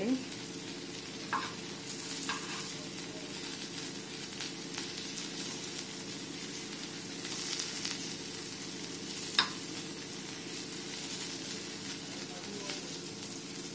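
Masala-coated drumstick pieces sizzling steadily as they shallow-fry in oil on a flat tawa. A few light clicks of metal tongs against the pan come as the pieces are turned, with one sharper click about nine seconds in.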